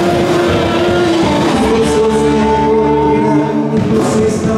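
Live band playing through a PA: a male singer on a microphone over electric guitars and drums, with long held notes in the middle.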